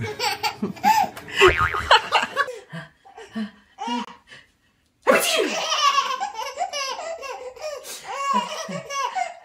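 Babies laughing. First comes one baby in short bursts, then a brief silence about halfway through, then a second baby laughing hard and almost without pause.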